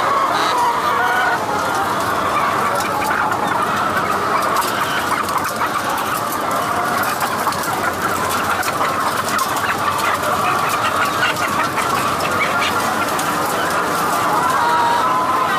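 A large flock of caged chickens clucking together, a dense, steady chatter of many overlapping calls.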